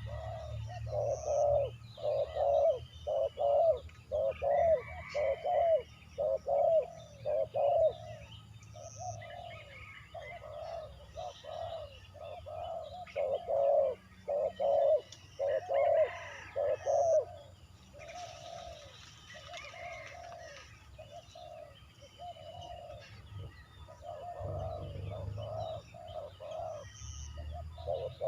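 A dove cooing over and over in phrases of low notes, about two a second, with short pauses between phrases. Other small birds chirp faintly in the background.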